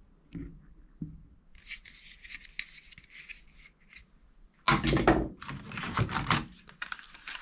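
Plastic toy guns clattering and rattling as a hand rummages through a box of them, loudest in a dense burst from a little past the middle. Before that there are a few light knocks and some scraping from plastic being handled.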